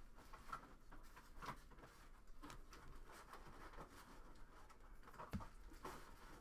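Faint handling of glossy Panini Prizm trading cards being flipped through by hand: soft sliding with a few light clicks and taps as cards are moved across the stack, the sharpest click about five seconds in.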